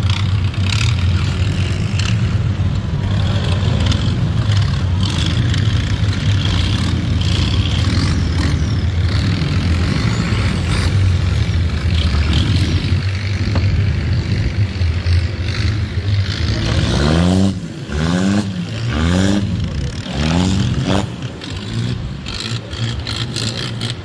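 A boat's engine running steadily under way, with water rushing past the hull. Near the end the engine is revved up and down four times, about a second apart, and then settles lower.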